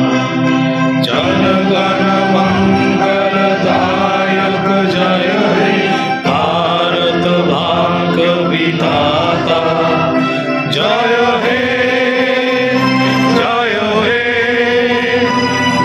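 A song sung in long, gliding phrases over steadily held low drone tones, with a new phrase starting about every three to five seconds.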